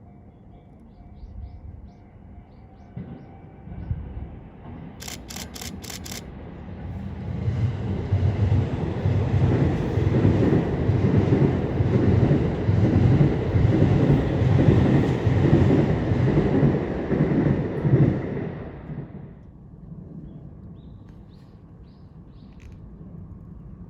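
A train passing over a level crossing. It builds up about seven seconds in, runs loud for about ten seconds with the rhythmic clatter of wheels on the rails, then dies away fairly quickly.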